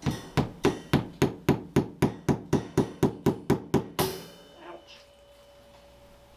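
Hammer driving a nail staple into particle board: about fifteen quick, even blows, roughly four a second, that stop about four seconds in.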